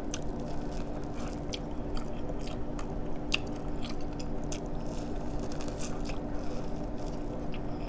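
Person biting and chewing corn kernels off the cob: scattered small wet clicks and crunches over a steady low hum.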